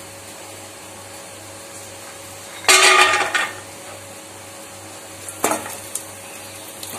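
Cashews, raisins and almonds tipped into a steel kadai of hot oil and ghee, clattering against the metal about two and a half seconds in, then a shorter clink a little before the end as they are stirred about.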